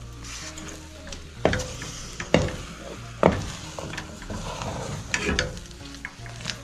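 Wooden cooking stick stirring and pressing stiff ugali in an aluminium pot, with scraping and dull knocks against the pot every second or so.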